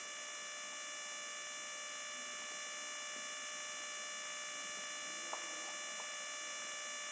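Steady electrical hum with a high-pitched whine of several constant tones. A few faint short ticks come about five to six seconds in.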